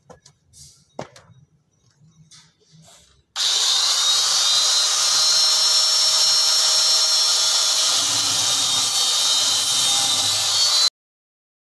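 Electric angle grinder running and cutting through a white PVC water pipe fitting: a loud, steady high whine with hiss. It starts about three seconds in and stops abruptly near the end.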